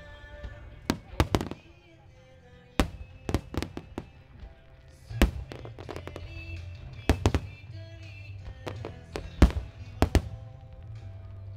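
Starmine firework shells bursting in quick clusters of sharp bangs every second or two, with music playing underneath.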